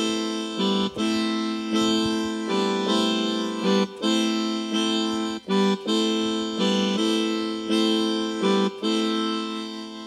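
Electronic portable keyboard playing the closing chords of a song. Each chord is held at an even level and changes about once a second, fading out near the end.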